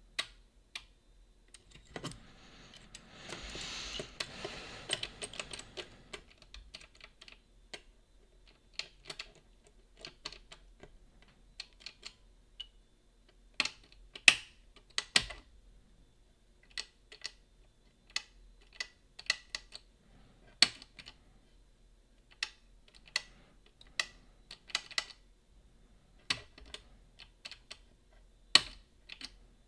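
Irregular small metallic clicks and ticks of lock picks lifting and springing the levers of a Boda 429 eight-lever lever lock, with a few seconds of scratchy scraping about two seconds in.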